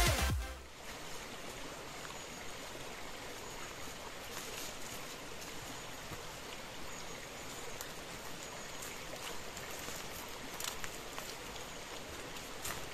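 Steady rushing of a small woodland stream flowing over rocks, with a few faint clicks on top.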